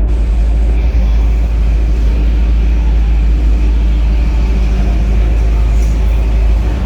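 Steady low rumble of a pickup truck on the move, heard from inside the cab.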